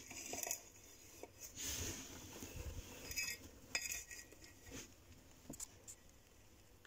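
Horsefield tortoise feeding from a stainless steel bowl of pellets: irregular crunches and sharp clinks as its beak and the pellets knock against the metal bowl, about half a dozen spread over several seconds.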